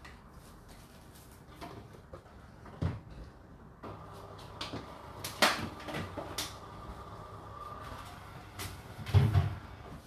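Whirlpool WFO3P33DLXUK dishwasher running its 65 °C main wash: a steady wash sound that picks up about four seconds in, broken by a few sharp knocks, the loudest near the end.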